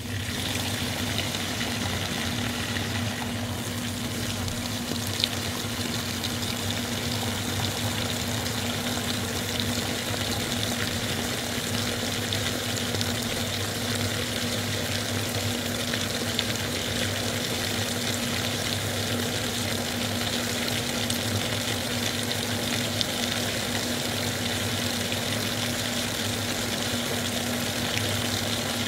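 A steady, even hiss of running-water-like noise with a faint low hum underneath.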